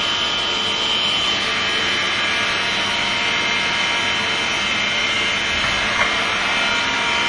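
Factory machinery running steadily, a constant even noise with a thin, steady high whine.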